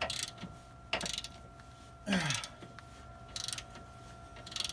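Ratchet wrench clicking in short spells as it backs out a rusty-threaded 13 mm radiator support bracket bolt that turns stiffly. A short sound falling in pitch about two seconds in is the loudest moment.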